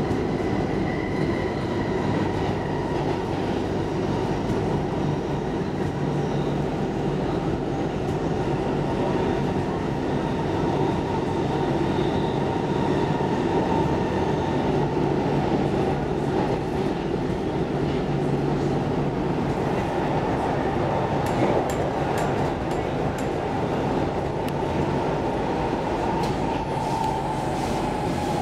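Stockholm Metro C14 carriage running along the line, heard from inside the car: a steady rumble of wheels on track with a faint high whine, and a few light clicks in the last several seconds.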